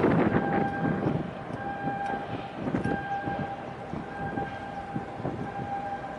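Wind and water noise with a repeating alarm tone, a steady beep that sounds for up to about a second at a time, stops, and comes back again and again. The wind and water noise is loudest at the start.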